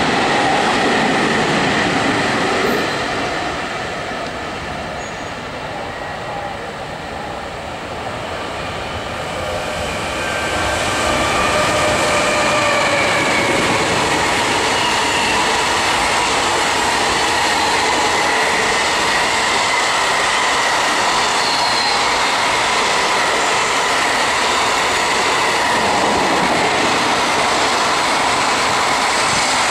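Container freight train hauled by an EF210 electric locomotive running through a station: a steady loud rumble of the wagons' wheels on the rails, with faint squealing tones from the wheels. It is quieter for several seconds near the start, then rises to the full sound of the wagons going past.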